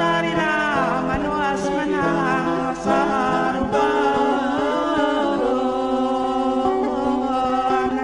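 Background music: a singing voice with sliding, ornamented pitches over a steady held accompaniment.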